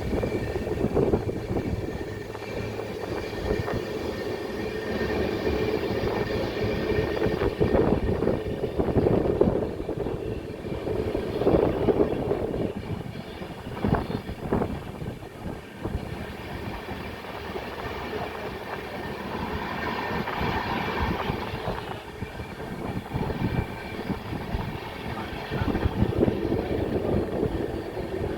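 A train running along the track, wheels rattling and clattering over the rails with a continuous rumble.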